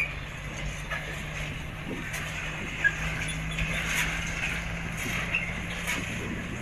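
Heavy truck's diesel engine running at a steady low drone, with scattered clicks and brief high chirps over it.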